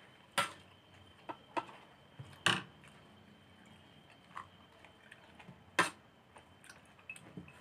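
Eating sounds: a metal spoon clinking and scraping on a ceramic plate, with mouth clicks from chewing. A handful of short sharp clicks are spread out, the loudest about two and a half and six seconds in.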